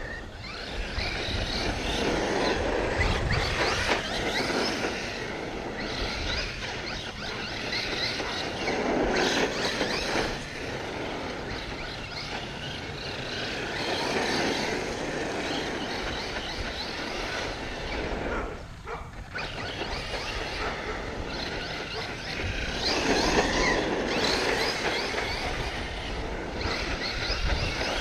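Arrma Kraton V4 6S RC monster truck driving on asphalt: its brushless electric motor whines and its tyres hiss on the road, rising and falling in several bursts of speed.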